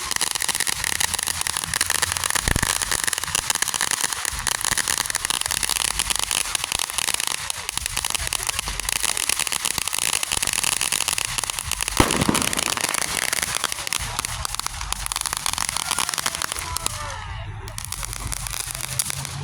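Fireworks crackling in a dense, continuous stream of rapid pops, with one louder bang about twelve seconds in. The crackling thins out near the end.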